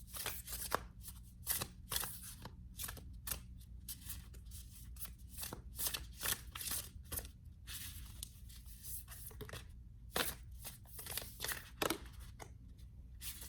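A tarot deck being shuffled by hand: a long run of quick, irregular papery swishes and flicks of the cards, over a faint steady low hum.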